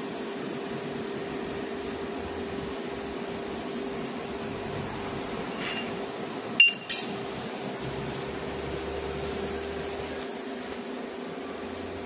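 Vertical milling machine running, its spiral end mill cutting slots into hardened steel wood-chipper knives: a steady hum with a constant tone. About halfway through come two sharp metallic clinks in quick succession.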